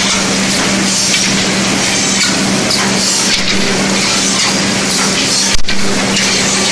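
Automatic broomstick processing machine running as it machines wooden broomsticks: a loud, steady noise with a constant low hum, and one sharp knock about five and a half seconds in.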